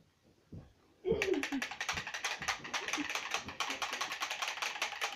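A rapid, even rattle of sharp clicks, about eight a second, starting about a second in.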